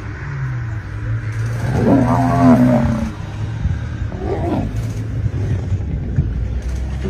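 Animal calls from lions attacking an African buffalo and calf: a loud, drawn-out pitched call about two seconds in and a shorter one about four seconds in, over a steady low hum.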